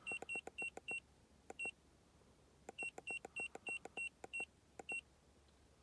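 An iCarsoft MB II handheld scan tool beeping at each button press as its menu is scrolled: about fourteen short, identical high beeps with clicks, in quick runs with a pause in the middle.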